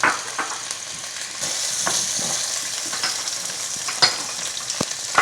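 Mushrooms sizzling in a hot skillet while a utensil stirs and scrapes the browned bits off the bottom of the pan, with several short scrapes and knocks against the pan. The sizzle gets louder and brighter about a second and a half in.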